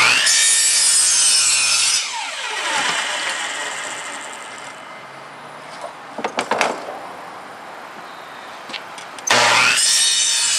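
Ryobi 10-inch miter saw with a carbide-tipped blade cutting a 4x4 post for about two seconds. The motor is then released and the blade winds down with a falling whine. A few knocks follow as the cut-off scrap is cleared, and about nine seconds in the saw starts again and makes the next cut.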